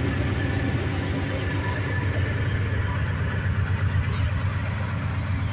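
Norfolk Southern diesel locomotives passing close by, their engines making a steady low drone that eases slightly as they move on.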